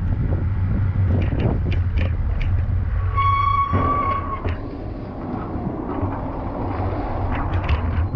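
Steady low rumble of road traffic, with a vehicle horn sounding one steady note for about a second, about three seconds in.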